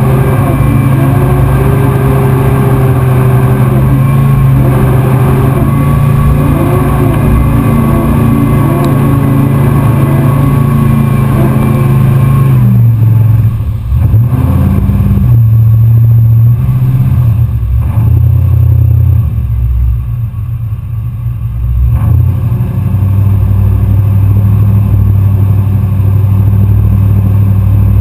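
Mud-bogging pickup truck's engine revving up and down in waves as it pushes through a flooded mud trail, heard loud and close. About halfway through the higher sounds drop away, leaving a deep, muffled engine drone with a few brief dips.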